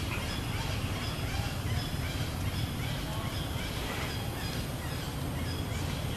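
Outdoor ambience: a steady low rumble with faint, short high chirps repeating about once or twice a second.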